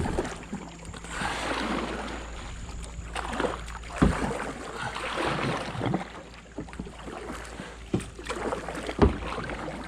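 Hollow knocks and bumps from handling gear in a small boat, about 4, 8 and 9 seconds in, over a steady rushing of wind and water.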